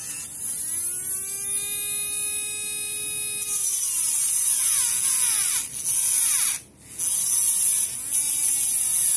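Tamiya Hyper Dash motor spinning a Mini 4WD propeller shaft at high speed while a hand file is held against the shaft to trim it. A high whine that slides up and down in pitch as the file bears on it. It cuts out briefly about two-thirds of the way through, then runs again.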